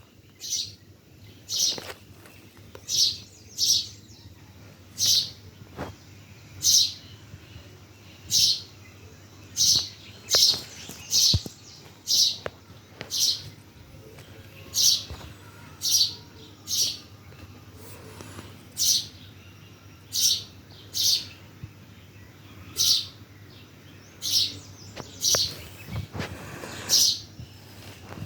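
Bird chirping repeatedly: short, sharp high-pitched notes, often in quick pairs, about one or two a second.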